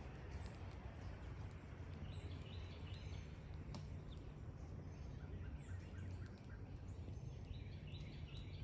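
Faint outdoor ambience with birds chirping: twittering calls twice, and a short run of repeated notes in between, over a steady low rumble and scattered light clicks.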